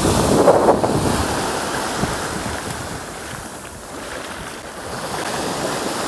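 Small sea waves breaking and washing up a fine-pebble beach. The loudest wash comes in the first second and then eases off, and another wave builds again near the end.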